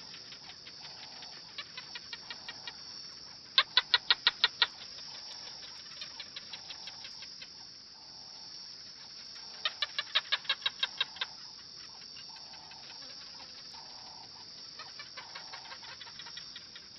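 Animal calls given as short trains of rapid clicking pulses, about seven a second, repeated every few seconds and loudest twice, over a steady high-pitched hiss.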